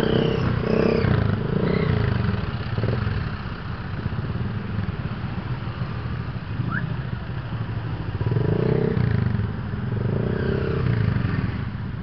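Motorcycle engines running at low speed in slow, stop-and-go traffic, swelling louder near the start and again about two-thirds of the way through as the bikes pull forward.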